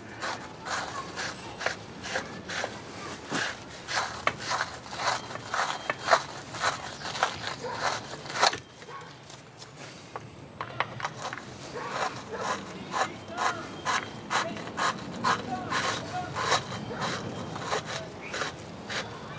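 Irregular scraping and rubbing of metal at a Johnson 25 hp outboard's corroded transom clamp bracket as white corrosion is worked out of it, with a short lull about halfway through.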